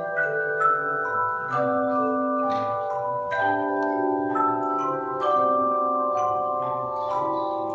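Handbell choir playing a piece: several bells rung together in chords, each note ringing on and overlapping the next as new bells are struck every half second to a second.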